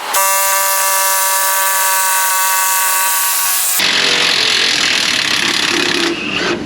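Milwaukee mid-torque cordless impact wrench hammering steadily on a stubborn suspension nut. About four seconds in the sound turns rougher and noisier, then eases off near the end.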